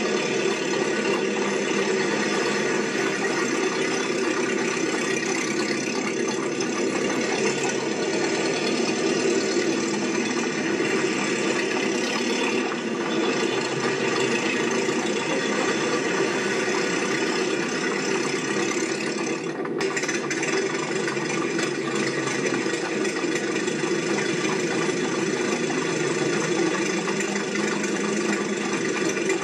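Steady mechanical running sound, like an engine, with a brief dip in level about two-thirds of the way through.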